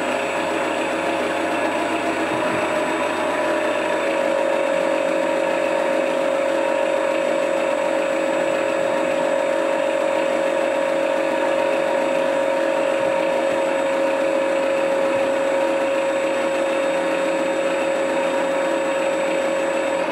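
Radio-control Yak-12 model running on the bench: its sound module plays a simulated aircraft engine over the whir of the electric motor and spinning propeller. A steady whine runs through it and settles slightly lower in pitch in the first few seconds, then holds.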